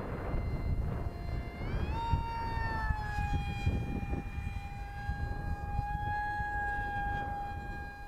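Electric motor of a foam radio-controlled MiG-35 model jet whining in flight, its pitch rising about two seconds in and then holding steady. Wind buffets the microphone throughout.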